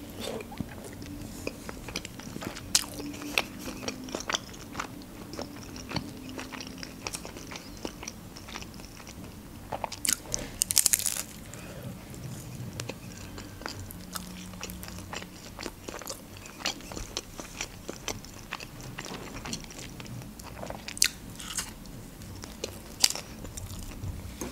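A person chewing and biting a homemade shawarma wrap close to the microphone: irregular wet mouth clicks and soft crunches, with a louder stretch of crunching about ten seconds in.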